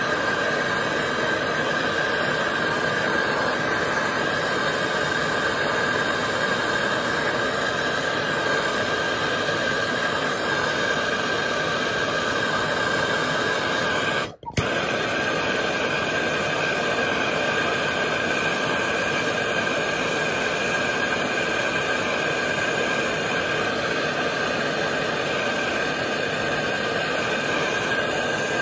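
MAPP gas hand torch burning with a steady rushing noise while it heats a copper pipe joint for soft soldering. The sound cuts out for an instant about halfway through, then carries on unchanged.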